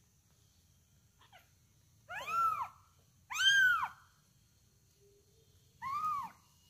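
A month-old kitten meowing three times, each call rising then falling in pitch; the second is the loudest and the last is shorter. A faint short squeak comes just before the first.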